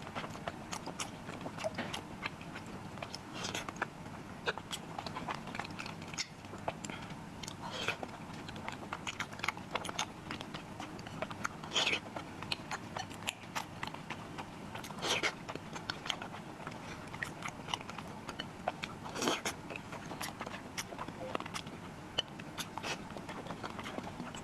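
Close-miked chewing and biting of soft, sticky glutinous rice balls (tangyuan): many small wet mouth clicks and smacks, with a few louder, longer mouth sounds about halfway through and later.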